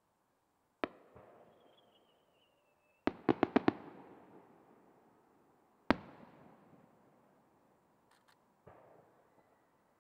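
Aerial firework shells bursting: a sharp bang about a second in, then a thin whistle that falls slightly in pitch, then a quick string of five bangs about three seconds in. A loud single bang comes near six seconds and a duller thump near the end, each trailing off slowly.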